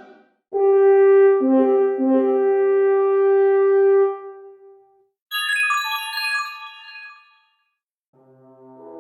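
iPhone alert tones played one after another: a held brass-like horn phrase of a few notes, then after a brief gap a quick run of high chime notes falling in pitch. Near the end the next tone starts, swelling in.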